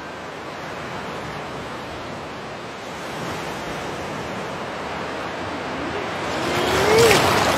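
Shallow surf washing up a sandy beach: a steady hiss of waves that swells to its loudest as a wave rushes in about seven seconds in.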